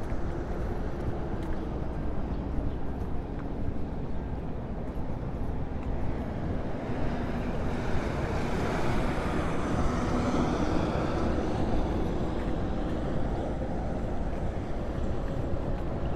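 Steady low street-traffic rumble. About halfway through, a louder vehicle passes by, swelling up and then fading away.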